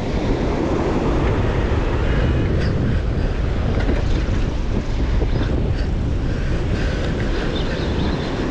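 Wind buffeting the microphone over the steady rush of surf, with a few faint ticks in the middle.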